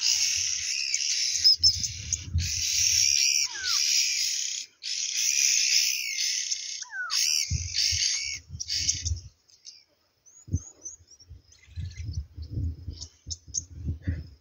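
Shrill, high chirring of wild bush creatures in long stretches that break off abruptly several times over the first nine seconds, with a few short downward-sliding calls among them. Low rumbles come and go, strongest near the end, when the chirring has died down.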